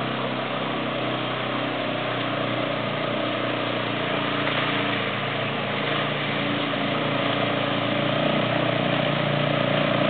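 ATV engine running steadily as a quad bike drives through a shallow creek, with water splashing around its wheels. The sound grows slightly louder toward the end as it comes closer.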